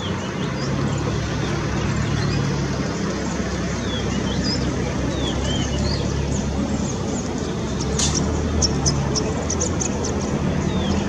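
A vehicle engine running steadily, a low hum over a noise floor. Faint short bird chirps, sliding in pitch, come now and then above it, with a quick run of high ticks near the end.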